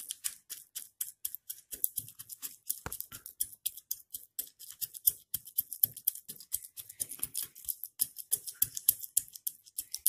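The back end of a wooden rolling pin pounding warm sesame-and-jaggery mixture down into a small steel bowl to shape tilkut: rapid, irregular crunchy taps, several a second.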